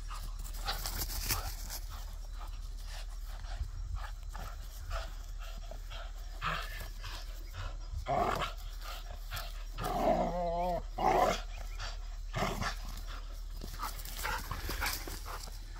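Vizsla dog playing tug with a toy, with short scuffles and a louder wavering vocal sound, typical of a play growl, about ten seconds in.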